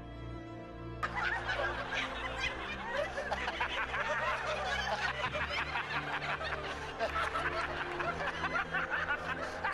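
Several people laughing at once in bursts of snickering and chuckling, the 'holy laughter' of a charismatic church meeting, starting about a second in over slow background music with held low notes.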